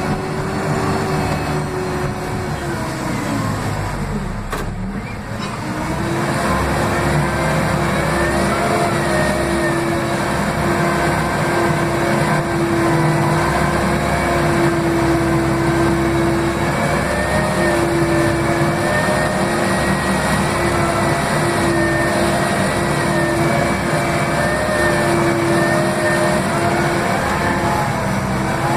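Case 580M backhoe loader's diesel engine, heard from inside the cab, running at high revs while working. About three seconds in the revs sag and the pitch drops. Within a couple of seconds it picks back up and holds a steady high pitch, with a higher whine that wavers above it.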